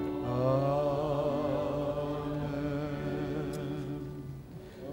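Small mixed choir of men's and women's voices chanting a slow Maronite liturgical response in long held notes, with a slight waver, fading out near the end.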